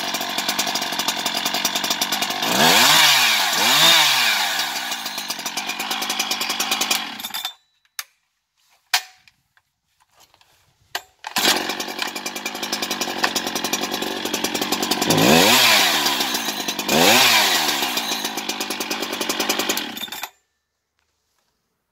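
Husqvarna 365 X-Torq two-stroke chainsaw idling, revved up twice in quick succession, then cutting off about seven seconds in. After a few clicks and knocks it starts again about eleven seconds in, idles, is revved twice more and cuts off near the end.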